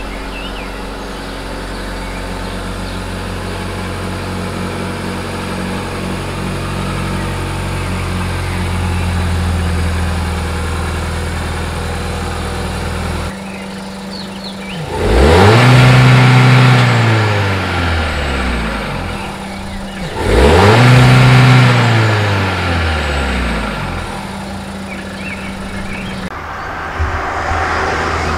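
Seat Leon FR's engine running at a steady idle, then revved twice, about 15 and 21 seconds in, each rev rising in pitch and falling back. The revs are the loudest part. The sound changes abruptly about 13 and 26 seconds in, as if cut between takes.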